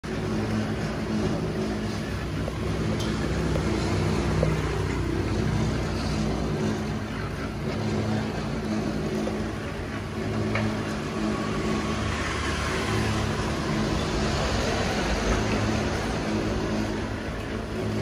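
Steady machine hum under a constant wash of noise, with a couple of faint clicks.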